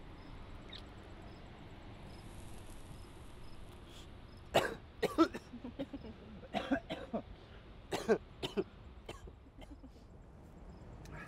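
A low, steady background, then a man coughing in several fits of short coughs for about four seconds.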